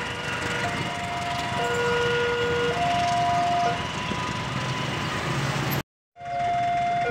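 Level-crossing warning signal sounding a two-tone alarm, a higher and a lower tone alternating about once a second, warning of an approaching train. It pauses briefly past the middle, and the sound drops out for a moment near the end before the alternating tones start again.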